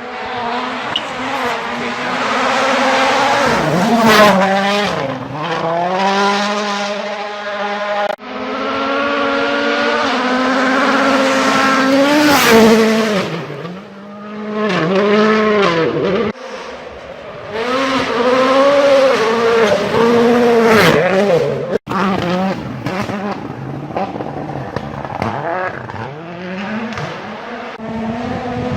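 Rally cars driven flat out, engines revving up and falling away over and over through quick gear changes and lifts. The sound cuts abruptly a few times, from one car to another.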